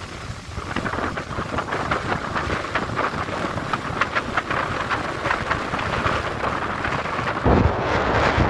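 Sea surf washing up a beach, a steady hiss full of fine crackling from breaking foam. About seven and a half seconds in, wind starts buffeting the microphone with a low rumble.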